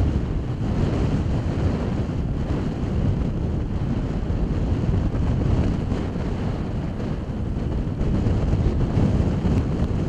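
Gale-force wind buffeting the microphone in a loud, low rumble that rises and falls with the gusts, with breaking ocean surf underneath.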